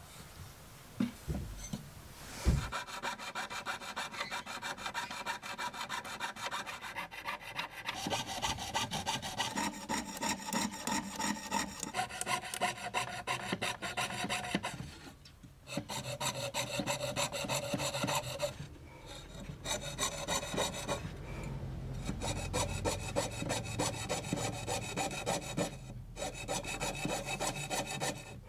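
Jeweller's piercing saw cutting sheet brass along a paper template, a fast run of short rasping strokes that stops briefly a few times. A couple of knocks come in the first few seconds before the sawing starts.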